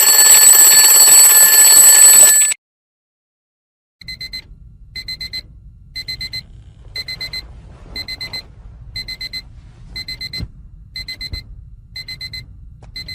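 Alarm clock going off: a loud continuous ringing for about two and a half seconds, then after a short silence, a pattern of quick short beeps in clusters, repeating about once a second.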